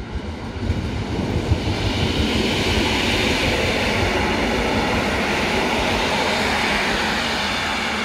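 Electric multiple-unit passenger train passing close by: the rumble of wheels on rail and rushing air builds over the first two seconds, with a couple of sharp knocks, then holds loud and steady.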